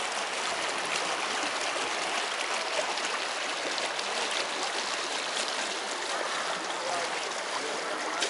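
Lake water rippling and splashing against the hull of a moving shikara, an even rushing hiss with small ticks of spray.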